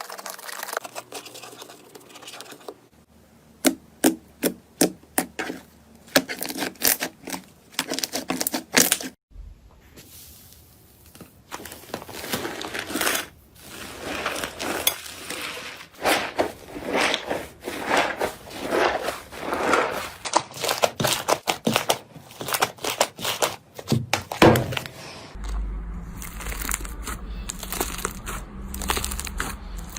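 Slime being squeezed and poked by hand, giving quick runs of crackling, popping clicks. The sound changes abruptly a few times, as one clip gives way to the next.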